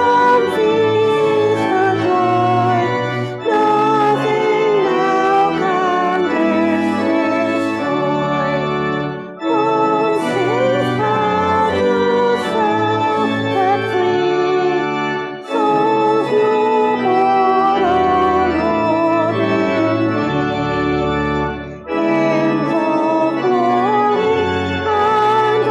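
Organ playing a hymn with the congregation singing along, in phrases broken by short breaths about every six seconds.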